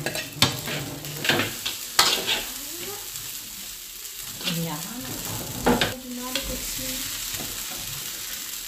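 Fried rice sizzling in a hot wok while a metal spatula stirs and tosses it. The steady hiss is broken by repeated sharp scrapes and clinks of the spatula against the wok, loudest about two seconds in and again near the middle.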